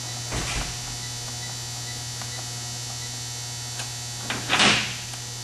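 Steady electrical mains hum, with a few faint clicks and a short, louder noisy rush about four and a half seconds in.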